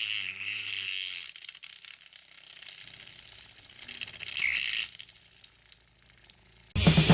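Homemade mini drill's small 9 V DC motor running with a high whine, then slowing to a stop about a second in; it whirs briefly again around four seconds in. Music starts near the end.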